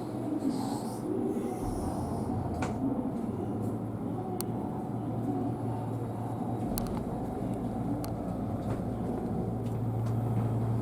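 Steady low hum inside a Kintetsu Hinotori limited express car standing at the platform before departure, with a few faint clicks. The hum grows a little stronger about seven seconds in.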